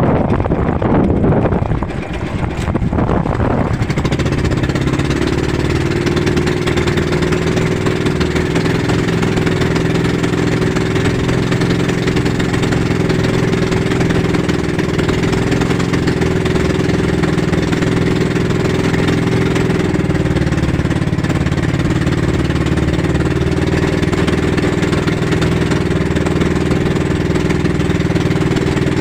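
Inboard engine of a small motorized outrigger fishing boat (bangka) running steadily while the boat is under way. In the first couple of seconds wind rushes over the microphone, and after that the engine's even drone is the main sound.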